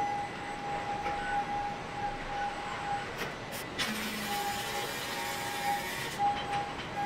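Machine sounds of robotic welding on a car-body assembly line: a steady high whine that cuts in and out, a couple of sharp clicks a little after three seconds in, then a hiss of about two seconds as the weld throws sparks.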